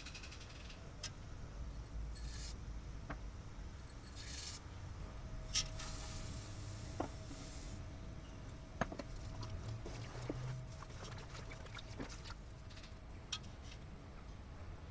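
Crushed barley malt poured from a bowl into a pot of warm water: a soft rushing hiss lasting a couple of seconds, amid scattered light clicks and knocks of handling.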